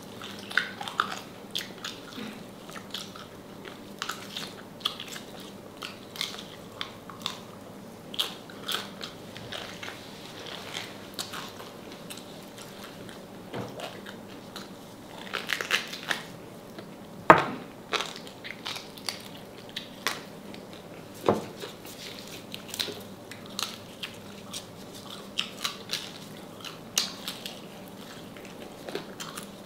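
Close-up biting, crunching and chewing of crispy deep-fried salted pork knuckle, in irregular short crackles, with two sharper, louder crunches a little past the middle.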